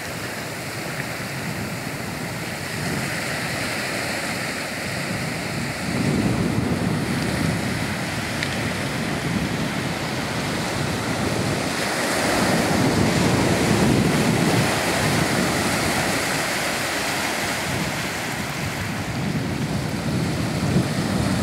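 Small sea waves breaking and washing up over a shallow beach, the surf swelling louder three times, about every six seconds.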